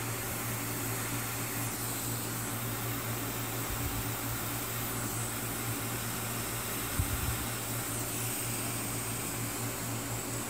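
A steady fan-like hiss with a low hum underneath, and a light knock about seven seconds in.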